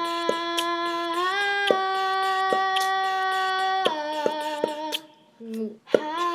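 A steady humming drone held on one pitch, stepping up a little about a second in and down about four seconds in, with light irregular clicks. It breaks off briefly about five seconds in, then ends on a sharp click.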